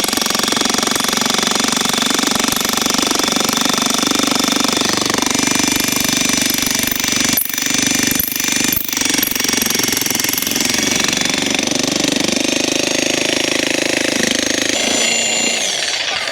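Vevor 1500-watt electric jackhammer running continuously, its chisel driving into a cottonwood log to split it. It falters briefly twice around halfway through, then cuts off at the very end.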